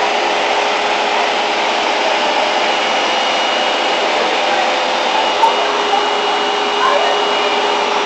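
Vacuum cleaner running steadily, a steady whine over the rush of air at its hose nozzle, which is aimed at a bug on a wall to suck it up.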